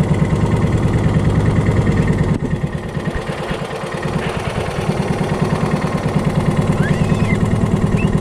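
Small fishing boat's engine running with a fast, even chugging beat; it eases off briefly about two and a half seconds in, then picks up again.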